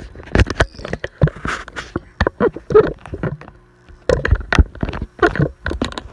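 Camera handling noise: a rapid, irregular series of loud knocks, bumps and rubbing as the camera is moved around by hand.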